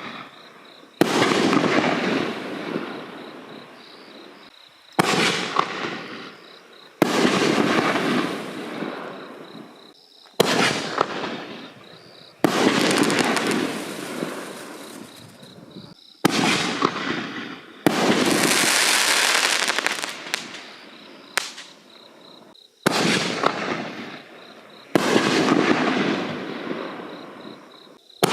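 5-inch aerial canister shells bursting one after another, about nine sudden bangs a few seconds apart, each dying away over a couple of seconds. One shell in the middle has a longer, brighter hissing tail.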